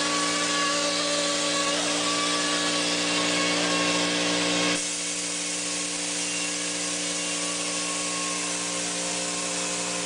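Texture-sprayer rig running steadily, with the hiss of air and coating leaving the spray gun over a steady machine hum. A little before halfway the sound drops slightly, the hiss thins and one of the hum tones stops.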